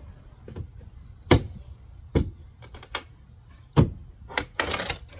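Demolition knocks on wood framing: four sharp, loud blows at uneven intervals with a few lighter clicks between, then a short rattling scrape near the end as a board is worked loose.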